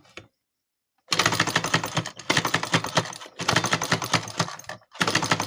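Sewing machine running in short spurts, its needle mechanism clattering with rapid clicks; the excessive noise is the fault the machine has. It starts about a second in after a moment of dead silence.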